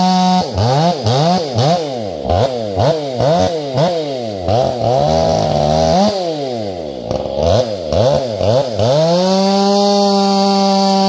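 Two-stroke chainsaw running a square-ground chain, cutting firewood. It holds steady at full throttle, then its pitch dips and recovers over and over, about twice a second, as the chain loads the engine in the cut. Near the end it climbs back to steady full revs.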